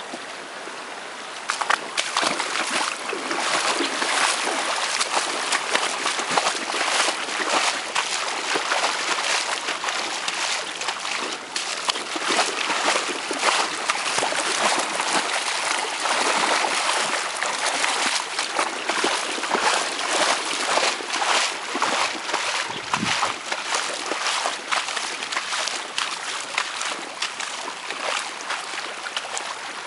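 Shallow, rain-swollen floodwater rushing and splashing over the ground in a fast, turbulent overflow stream, getting louder about a second and a half in.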